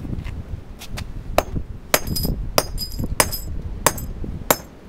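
Hammer striking asphalt over and over: a run of sharp blows, each with a brief metallic ring, about one every half second. The first few are light, and they come harder from about a second in.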